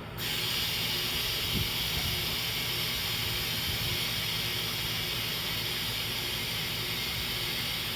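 Compressed air hissing steadily into a freshly plugged truck tire through an inflator chuck on the valve stem, starting abruptly just after the start, as the tire is filled toward 40 psi.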